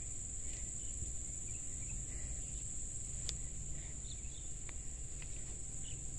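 Insects shrilling steadily at one high pitch, over a low rumble, with a few faint short chirps and clicks now and then.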